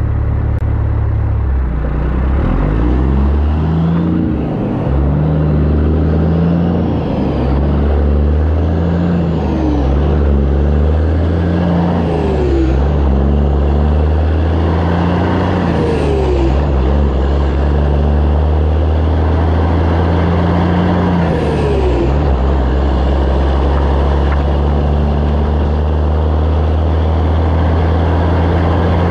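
Caterpillar C15 ACERT inline-six diesel truck engine on 8-inch straight-piped stacks, revved up and let back down several times, then settling to a steady idle for the last several seconds.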